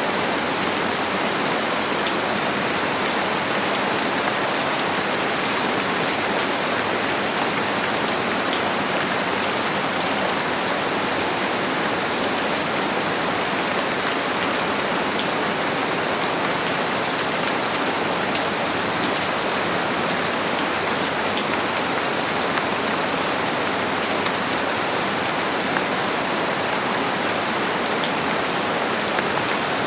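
Steady rain falling, an even hiss dotted with many fine drop ticks on hard surfaces, unchanging in strength.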